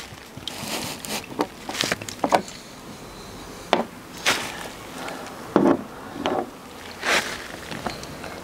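Irregular knocks and clicks of a hand handling a plastic oil drain pan and the sump area beneath a motorcycle while warm engine oil drains into the pan.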